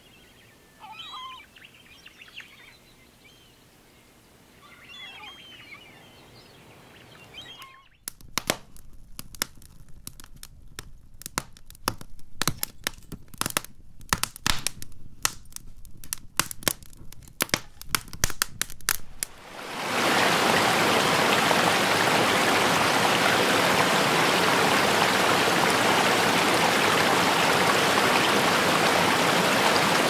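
A few soft bird chirps, then about eight seconds in a wood fire crackling with sharp, irregular pops. About twenty seconds in it changes abruptly to a loud, steady rush of falling water splashing.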